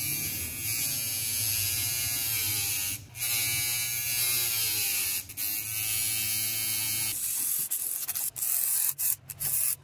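Metal tool tip being ground against the spinning abrasive-covered platter of a hard drive turned into a disk grinder: a steady hiss over a small motor's hum, with a thin whine that wavers in pitch, broken off twice briefly. After about seven seconds the grinding stops and gives way to scattered clicks and knocks.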